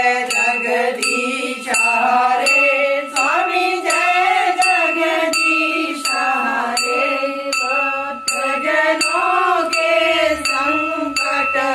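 Evening aarti being sung to a melody, with a bell struck about twice a second ringing under the singing. It starts and cuts off abruptly.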